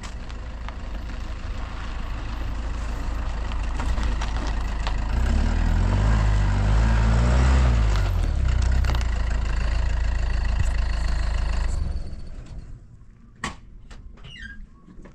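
A vehicle engine running and drawing closer. Its pitch rises and falls a few times about halfway through, then it is switched off near the end.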